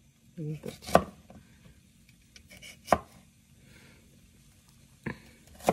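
Chef's knife slicing mini bell peppers on a plastic cutting board. Sharp, irregular knocks of the blade hitting the board come about a second in and near three seconds, then twice near the end, with a few lighter ticks between.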